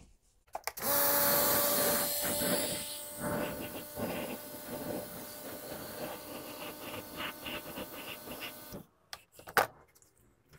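High-pressure washer jet spraying onto a car's exhaust tip, rinsing off shampoo foam. It starts about a second in as a loud steady hiss with a faint whine through it and water splattering, then stops shortly before the end, followed by one short click.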